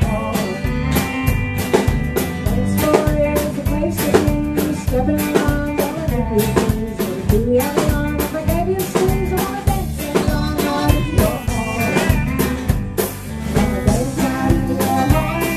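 Live country band playing an up-tempo song on drum kit, electric bass, acoustic guitar and pedal steel guitar, with a steady drum beat throughout.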